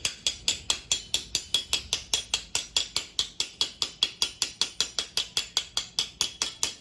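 Rapid, evenly spaced mechanical clicking, about four to five clicks a second.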